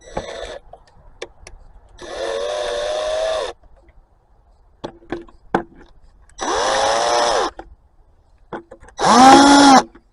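A power drill run in a short burst and then three longer runs of about a second each, its whine rising as it spins up and dropping as it stops, the last run the loudest and highest. Light clicks and knocks of tools and parts come between the runs. This is the drill backing out fasteners as the intake's air horn assembly is taken apart.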